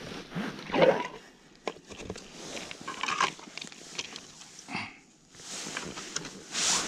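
Irregular scuffs, rustles and small clicks of hands working a pike tip-up over an ice hole while the bait is lowered and the depth measured. A short squeak comes just before five seconds in.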